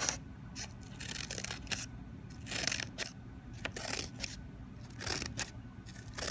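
Old steel scissors making a series of short, irregular scraping strokes, about eight of them, a few lasting longer than the rest.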